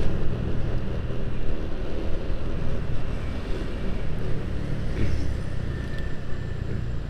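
Motorcycle riding along a road: a steady low engine and road rumble, with wind on the microphone.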